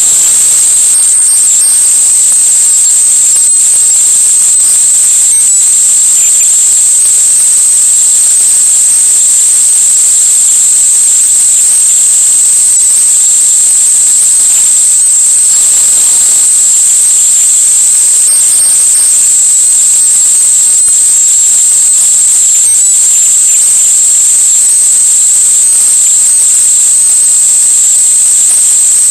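A steady, loud, high-pitched whine over a constant hiss, unchanging throughout: electronic noise on the recording rather than any sound from the scene.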